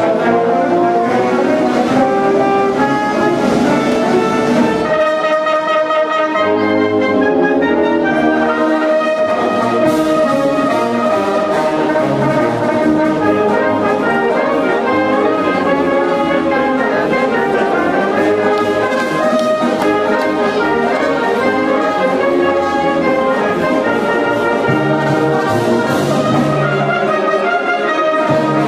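Italian concert wind band (banda) playing: brass and clarinets together in sustained chords and moving melody lines, without a break.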